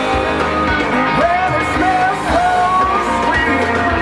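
Country-rock song with a lead singer over guitar and a steady beat, played loud for line dancing.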